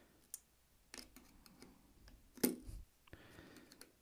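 A few small sharp clicks and ticks from a screwdriver tip prying at tiny U.FL antenna coax connectors on a circuit board, with the loudest click about two and a half seconds in, followed by a soft knock.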